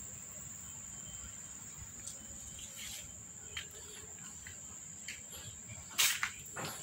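An insect's steady high-pitched trill, most likely a cricket, runs without a break. A few soft knocks and clicks fall over it, with a louder sharp knock near the end.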